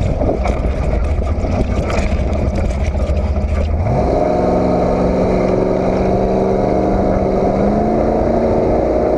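Off-road race truck engine running hard, with a rough rushing noise over it; about four seconds in the engine note rises and then holds at a steady higher pitch.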